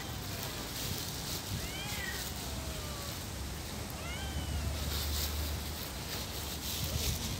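Stray white-and-tabby cat meowing for food, three calls a couple of seconds apart, each rising and then falling in pitch, over a low steady rumble.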